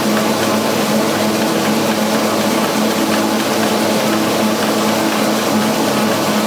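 Hot needle perforator running steadily: a constant mechanical hum with a steady low tone over an even machine noise.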